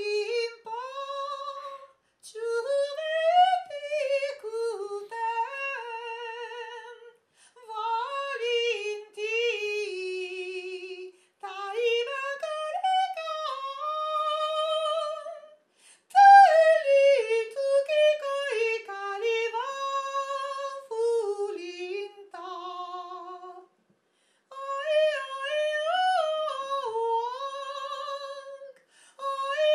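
A woman singing unaccompanied in long melodic phrases with a wide vibrato, broken by short pauses for breath. It is a futurist onomatopoeic 'noise-song' in mock-Chinese style.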